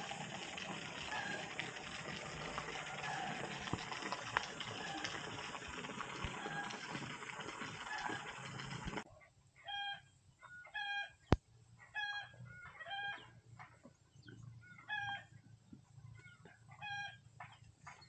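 Rural ambience: a steady hiss fills the first half and cuts off abruptly about nine seconds in, then chickens give short clucking calls, singly and in pairs, with one sharp click about eleven seconds in.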